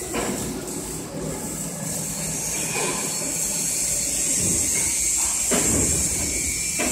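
Factory workshop noise: a steady high hiss with irregular low rumbles and knocks from machinery, heavier in the second half.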